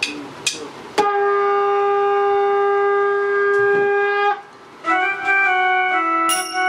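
Electronic keyboard playing a woodwind-like voice: after two short taps, one long held note for about three seconds, then a short melodic phrase of changing notes. A bright strike rings out near the end.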